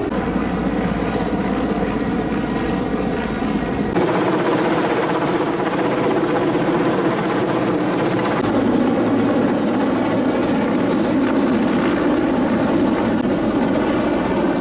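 Helicopter running steadily. About four seconds in the sound changes abruptly: the deep rumble drops away and a brighter hiss takes over.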